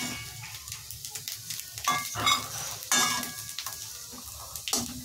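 Coconut pieces sizzling in hot oil in a kadai while a spatula scrapes and scoops them out, with a few sharp scrapes and clinks of the spatula against the pan.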